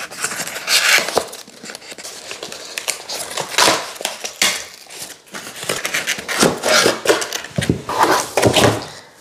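Cardboard of a flat-pack furniture box being torn open and pulled apart by hand: irregular tearing, crinkling and scraping of cardboard.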